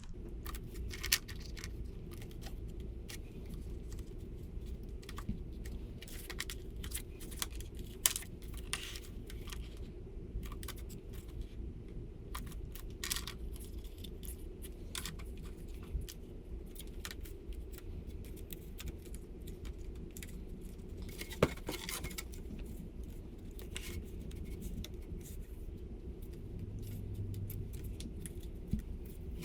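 Scattered light clicks and rattles with a few sharper knocks as the sluice box's riffle mats are handled and their pitch is set.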